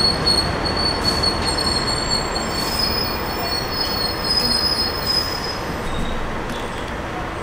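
Steel wheels of the NYC Subway track geometry car TGC 4 squealing against the rails as it rolls slowly along: a steady high-pitched squeal with several thin piercing tones over a low wheel rumble, easing off a little near the end.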